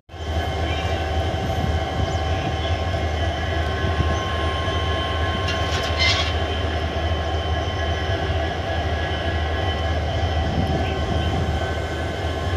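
EMD diesel-electric locomotive running, a steady low engine drone with several steady high-pitched tones over it. A brief sharper sound comes about six seconds in.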